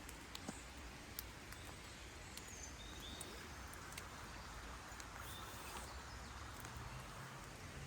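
Faint woodland ambience with scattered light clicks and snaps, and a few brief, faint high bird chirps.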